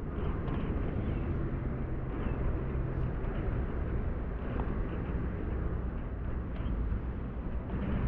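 Outdoor city-park ambience: a steady low rumble of distant road traffic.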